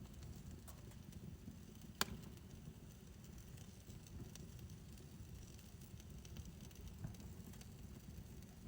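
Fire burning in a fire pit: a soft low rumble with sparse faint crackles, and one sharp pop about two seconds in.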